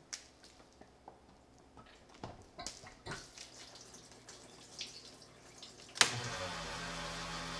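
Flood coolant dripping and splashing onto a metal workpiece on a Taig CNC mini mill. About six seconds in, a sharp click, and the mill starts running with a steady hum and a whine that begins to rise in pitch.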